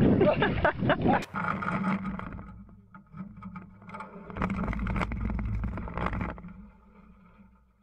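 Small outboard motor running steadily as an aluminium jon boat moves across the water, with splashing and knocks against the hull. The rumble is louder from about four to six seconds in, then fades.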